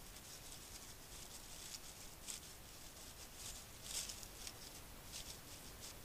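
Faint, irregular crackling and rustling of dry fallen leaves as a white-tailed deer forages with its head down; the loudest crackles come about two and four seconds in.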